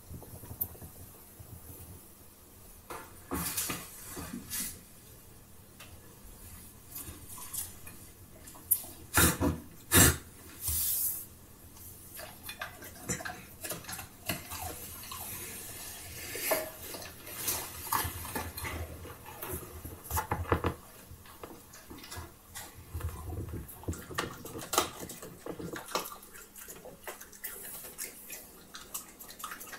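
Irregular clicks and knocks of a plastic plate holding a wet dog-food cake, the loudest a few sharp clatters about ten seconds in, then a German Shepherd licking and eating the wet food off the plate.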